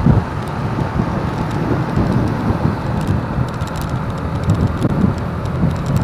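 Wind buffeting the microphone of a camera on a moving motorcycle, an uneven low rumble over steady road and traffic noise.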